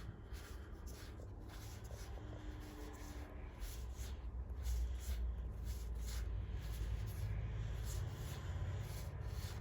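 Disney Lorcana trading cards being handled and slid against one another, a soft, irregular papery rustling over a steady low rumble.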